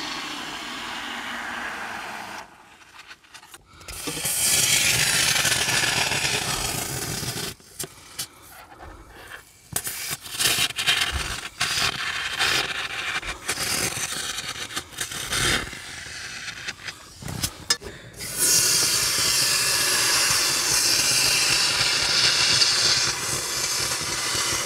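Aerosol foam air-conditioning cleaner hissing as it is sprayed through its tube into a car's air vents, in three long bursts, the longest near the end. Between the bursts come clicks and rustling as the can and tube are handled.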